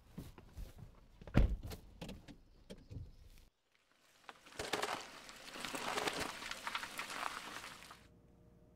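A few thuds, the loudest about a second and a half in. After a short break, a car's tyres rolling over the asphalt as it pulls away, a hissing crackle lasting about four seconds that cuts off suddenly.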